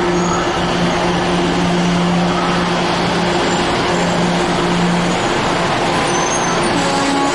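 NJ Transit bilevel commuter coaches rolling past along the platform: a loud, steady rumble of wheels on rail. A low steady hum runs under it and drops out about five seconds in.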